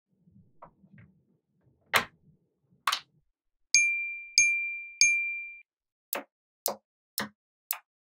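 Small neodymium magnetic balls clicking as magnetic-ball pieces are handled and snapped together: a faint rustle, two clicks, then four quick snaps about half a second apart near the end. In the middle come three short bell-like dings, each ringing on one steady tone.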